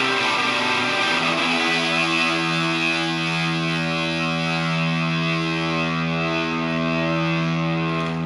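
Electric guitar played through a germanium Tone Bender MKII fuzz pedal: a couple of quick strums, then a thick, distorted chord struck about a second and a half in and left to ring, sustaining steadily.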